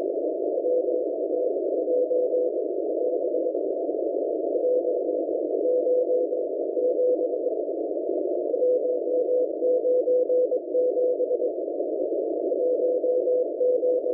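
M01 numbers station sending Morse code numbers on shortwave: a single steady tone keyed on and off in groups of dots and dashes, over constant shortwave static.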